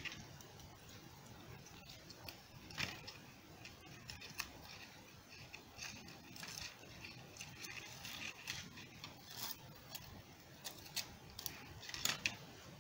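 Faint, scattered clicks and rustles of dry twigs and a curly wrapping-paper ribbon being handled, as two sticks are tied together and stood in a cardboard tube.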